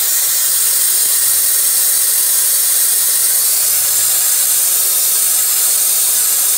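Skat Blast sandblasting gun firing red garnet grit at 30 PSI inside a blast cabinet: a steady, loud hiss of air and media. The even flow, fed through a new metering valve, is what the owner judges a much better job than his old siphon tube.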